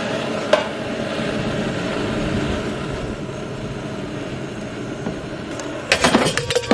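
Propane camp stove burner running with a steady hiss. Near the end, a quick run of metal knocks and clinks as a steel pot is moved on the stove's grate.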